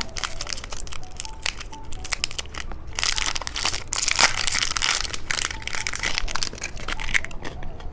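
Plastic wrapper of a small umbrella-shaped chocolate-filled biscuit crinkling and crackling as it is torn open and handled. The crinkling is busiest in the middle, with many small clicks.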